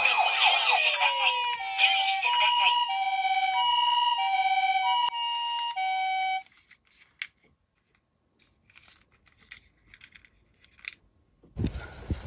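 Two-tone hi-lo ambulance siren: two steady pitches alternating about every half second for several cycles, then cutting off abruptly about six seconds in. Falling siren glides overlap at the start. Near the end a louder low noise begins.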